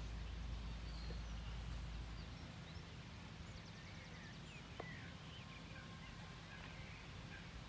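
Quiet open-air ambience with faint bird chirps scattered through the middle. A low wind rumble on the microphone fades out after about two seconds.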